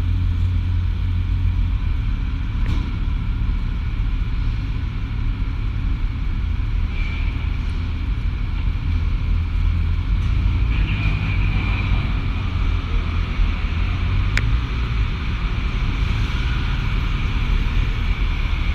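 Suzuki GSF1250S Bandit's inline-four engine running as the motorcycle rolls slowly across a ferry's enclosed vehicle deck, with a steady deep rumble. A high whine comes and goes over it.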